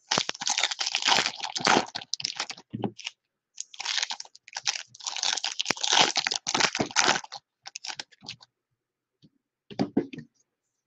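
Shiny wrappers of 2018 Bowman baseball card packs crinkling and tearing as the packs are opened, in two long stretches with a short pause between, then a few brief rustles as cards are handled and set on a stack.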